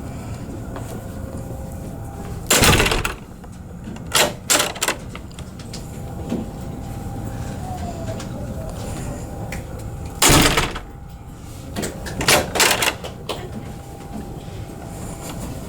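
A wooden door with a Sargent 18-77 knob mortise lock, mounted in a drywall wall, worked twice. Each time there is a loud thump of the door meeting the frame, then a quick cluster of three or four sharp clicks from the latch and knob.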